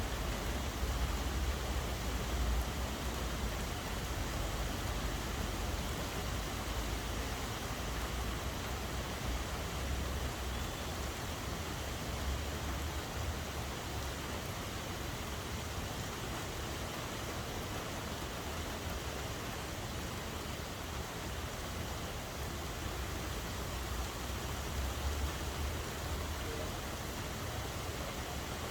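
Steady rainfall making an even hiss, over a low rumble that swells and fades.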